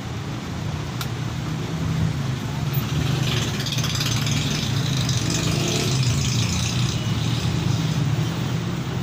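A CRT television being switched on: a sharp click about a second in, then a steady low hum with a hiss that swells from about three seconds in and eases off near the end.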